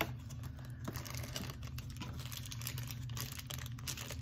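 Small scattered clicks and taps of cardboard packaging being handled and opened by hand, over a steady low hum.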